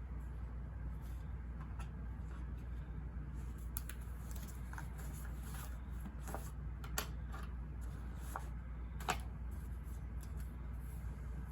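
Small desk sounds from studying: scattered light clicks and paper rustles of pen and pages, the sharpest near the middle and about nine seconds in, over a steady low white-noise hum.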